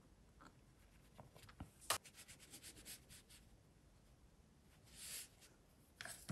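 Faint dabbing and brushing of a watercolour brush on paper: a sharp tap about two seconds in, then a quick run of light scratchy strokes, and a soft swish about five seconds in. A couple of small clicks near the end as the brush goes into the paint palette.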